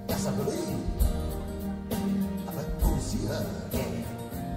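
Live band playing an instrumental passage between vocal lines, heard on an audience tape: a drum hit roughly once a second under bass, guitars and a wavering lead melody.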